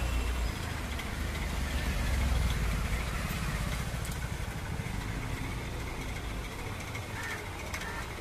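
Road traffic: a motor vehicle's engine rumble that swells about two seconds in and then slowly fades.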